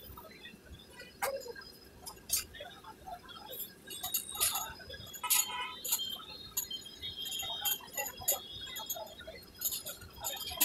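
Scattered light clinks and clicks, as of metal utensils at a street food stall, with a few short high ringing tones in the second half.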